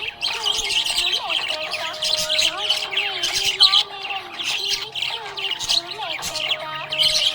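Budgerigars chirping and chattering, a dense, continuous run of quick high chirps and warbles.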